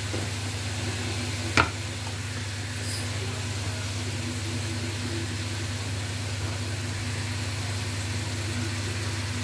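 Chopped cabbage and spinach with garlic frying in a pot, a soft steady sizzle over a steady low hum, with one sharp knock about a second and a half in.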